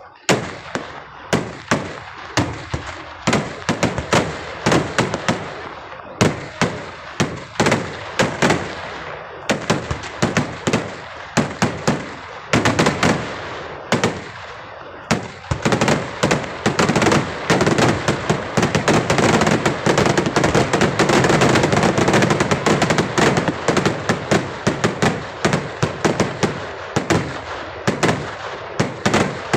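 Daytime fireworks display (Kerala-style vedikkettu) with a rapid string of loud explosions, several bangs a second, from aerial bursts and ground crackers. About halfway through the bangs merge into a near-continuous barrage for several seconds, then break back into separate rapid reports.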